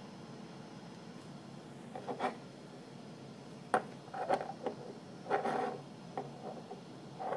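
Faint handling noise: a few short rubs and scuffs, with one sharp click near the middle, over a steady low hiss.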